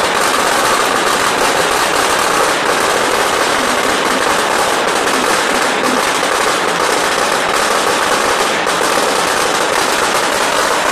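A long string of large firecrackers going off in a rapid, unbroken crackle of bangs.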